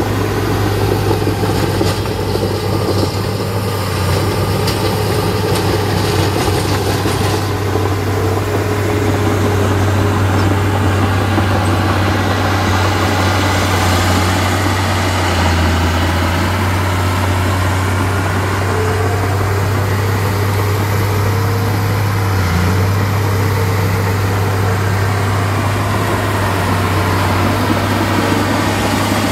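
Diesel engine of heavy earthmoving machinery (dozer or dump truck) running steadily with a low, even drone.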